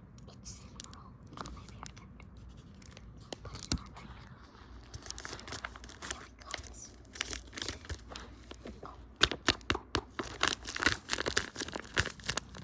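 Packaging being handled, with crinkling and tearing rustles and scattered sharp clicks that come thicker and louder in the last few seconds.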